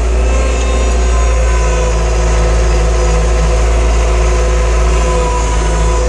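Caterpillar 246 skid steer's diesel engine running steadily as the machine drives, heard from inside the cab: a loud low drone with a thin steady whine above it.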